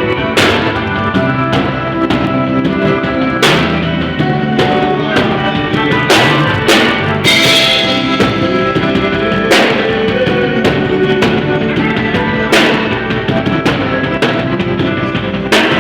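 Live band playing an instrumental groove: drum kit with kick and snare, under sustained pitched instruments, and a loud cymbal crash about every three seconds.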